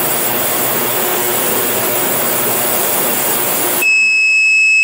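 Vevor 10L ultrasonic cleaner running with a loud, steady hiss. Near the end the hiss cuts off as the timed cycle finishes, and the unit gives one loud, high-pitched beep lasting about a second to signal that it is done.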